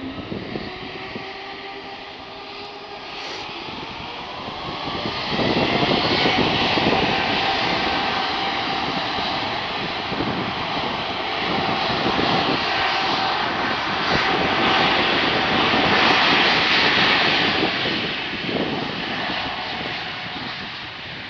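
Embraer E190-E2's Pratt & Whitney PW1900G geared turbofans spooling up to takeoff power: a rising whine under a swelling rush of jet noise that turns loud about five seconds in. It stays loud, then fades near the end as the aircraft rolls away.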